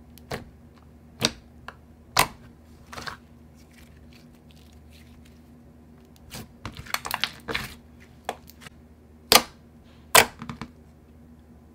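Thick pink slime poked and squeezed by fingers, giving irregular sharp pops and clicks, the two loudest near the end, over a faint steady hum.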